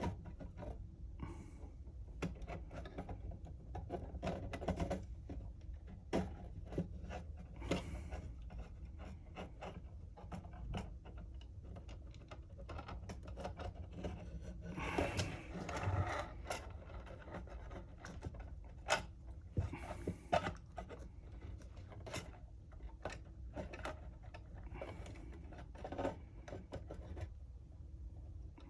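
Handling noise of 3D-printed plastic model parts being worked into place: scattered light clicks and knocks with a few stretches of scraping and rubbing, over a low steady hum.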